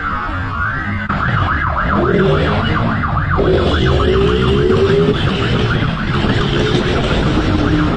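Fast yelping siren of a pursuing police motorcycle, its pitch sweeping rapidly up and down, over the bike's engine revving and rising in pitch from about two seconds in.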